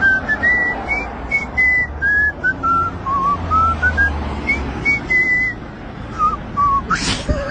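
Someone whistling a tune: a string of short, clear notes stepping up and down in pitch. A brief loud noise cuts in near the end.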